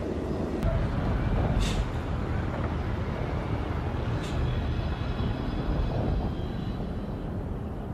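Dockside ambience: a steady low mechanical rumble, with two brief high hisses about one and a half and four seconds in.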